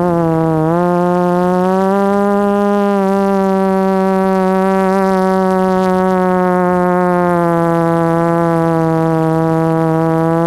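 Motor and propeller drone of an FPV radio-controlled aircraft, recorded close up by its onboard GoPro: a steady buzzing hum whose pitch dips briefly just under a second in, rises a little about two seconds in, then holds nearly level.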